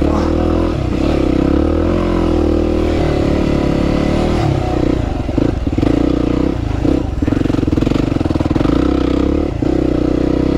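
Dual-sport motorcycle engine revving hard under load as the bike labours through deep, soft sand. The revs waver in the first couple of seconds, then hold high with several brief drops in the second half.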